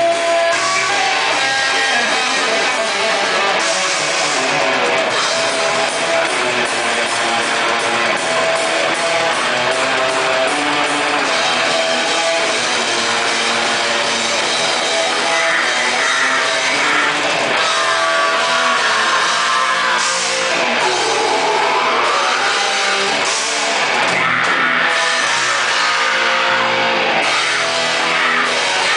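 Heavy metal band playing live: electric guitars and a drum kit, loud and continuous, with a sliding high line weaving through the middle.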